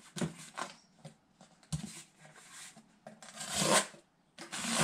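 A freshly whetstone-sharpened cheap knife slicing through a sheet of cardboard: a few cutting strokes, the later ones lasting up to about a second each.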